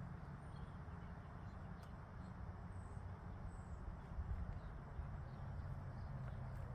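A few faint, short, high bird chirps over a steady low background rumble.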